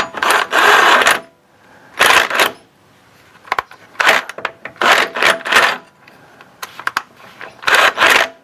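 Hand ratchet clicking in about five short bursts as a body mount bolt is run in through the running board bracket, left snug but loose enough for the bracket to swivel.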